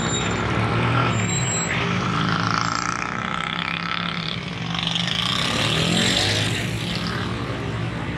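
Busy street traffic: motorcycle and auto-rickshaw engines running close by in a steady low drone, growing a little louder about five seconds in.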